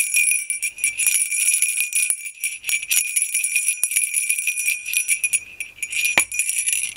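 Alaska three-bell bear bell, a string of three round slotted jingle bells, shaken and jingling continuously with a bright, high ring.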